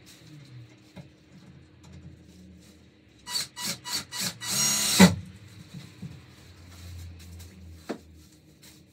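Cordless drill driving into a wooden rail: a few short trigger bursts, then a longer whirring run that stops abruptly about five seconds in. A light knock follows near the end.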